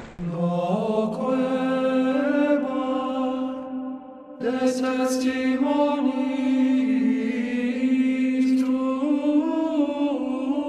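Slow sung chant: a single melodic line of long held notes stepping up and down, with a short break about four seconds in.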